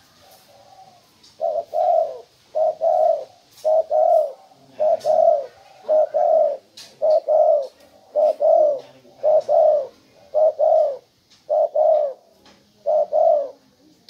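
Spotted dove cooing: a run of about eleven two-note coos, one about every second.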